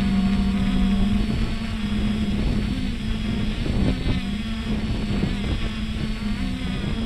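Traxxas Aton quadcopter's motors and propellers humming steadily, heard from the camera on the drone, the pitch wavering slightly up and down as it holds its position, with wind rushing over the microphone.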